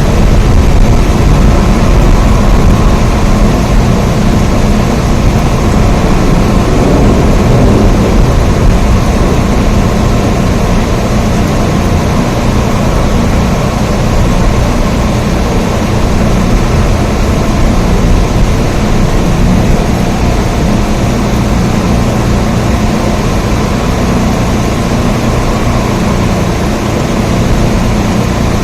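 Steady, heavy rain: a loud, even wash of noise with a deep low rumble, unchanging throughout.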